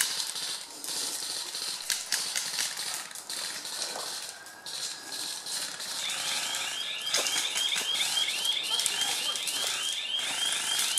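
Airsoft guns firing in sharp clicks and short strings over the first few seconds. About six seconds in, a rapid electronic-sounding chirping alarm starts, about four rising chirps a second, and keeps on steadily.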